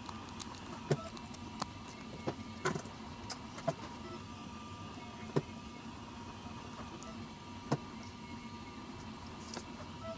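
Hot glue gun and paper straw pieces handled on a wooden tabletop: scattered light clicks and taps as pieces are placed and glued and the gun is picked up and set down, over a steady low hum.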